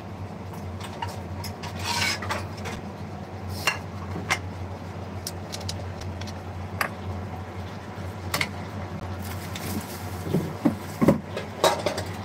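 Cooking pots, pans and utensils clattering and scraping in scattered knocks, with several sharper knocks close together near the end, over a steady low hum.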